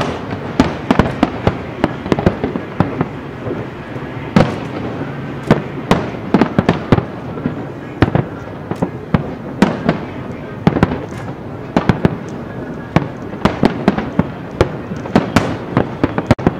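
Aerial fireworks shells bursting, dozens of loud booms in quick, irregular succession.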